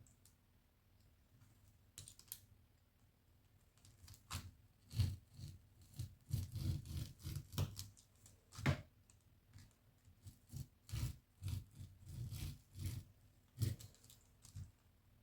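Serrated tracing wheel run over pattern paper and fabric to mark darts: a string of irregular scratchy strokes and clicks, sparse at first, then busy from about four seconds in until near the end.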